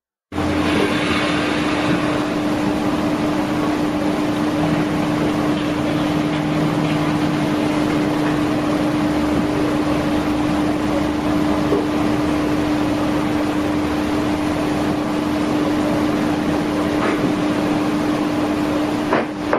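Steady machine hum: one constant tone over an even hiss, cutting in abruptly just after the start and holding level throughout.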